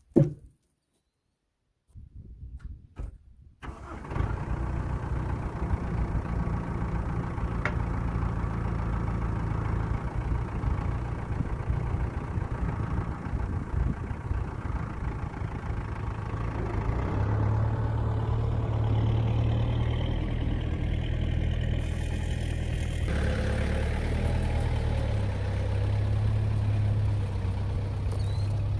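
Farm tractor engine starting up a few seconds in, then running steadily, its pitch shifting a couple of times.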